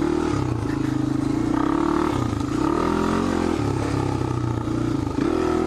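Honda ATC 350X three-wheeler's four-stroke single-cylinder engine running while riding, its pitch rising and falling a few times as the throttle is opened and eased off.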